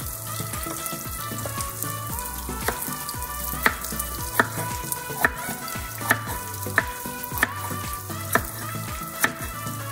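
A chef's knife slicing a sweet pepper on a wooden cutting board: sharp knocks of the blade on the board about once a second from a few seconds in. Under them runs the steady sizzle of breaded fish frying in oil.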